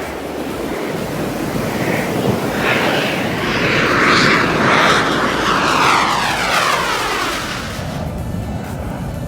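Aircraft flying past: its noise builds to a peak about four to five seconds in, then drops in pitch and fades as it moves away.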